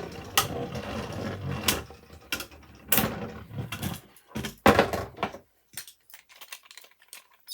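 3D-printed Beyblade spinning tops whirring and scraping in a plastic stadium, with sharp clacks as they collide. The clacks thin out after about four seconds and the sound dies to near silence near the end.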